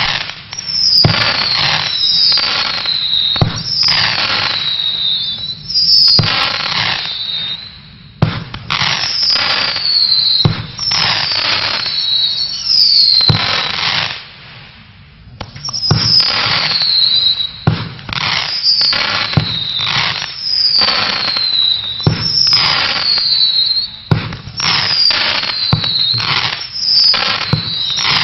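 Vuurwerktotaal 'Sick Nation' 16-shot firework battery firing shot after shot. Each shot is a short thump and a falling whistle, followed by crackling, with brief lulls about eight seconds in and around the middle.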